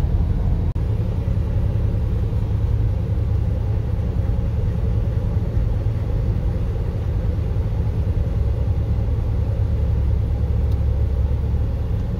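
Steady low rumble inside a moving car's cabin at highway speed: road and wind noise from driving through a strong-wind dust storm.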